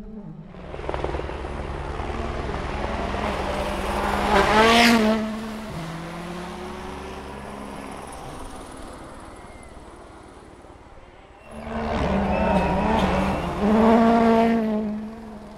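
Two rally cars at speed, one after the other. Each engine note swells to a peak as the car passes and then drops in pitch as it goes away. The second car arrives abruptly just past the middle.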